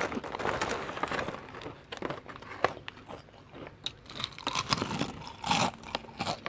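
Crispy yam chips being bitten and chewed: a run of sharp, uneven crunches, with the foil snack bag crinkling as a hand reaches into it.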